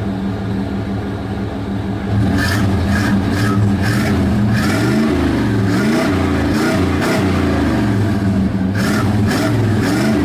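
A vehicle engine running steadily, then revved from about two seconds in, the engine speed rising and falling over and over.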